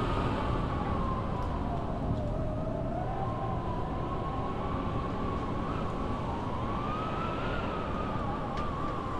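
Live electronic music: a dense, low droning noise bed with a wavering, siren-like tone that slides slowly down, climbs back up, and rises again later on.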